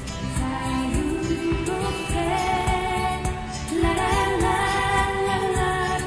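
Background pop song: a woman singing long held notes over a steady beat.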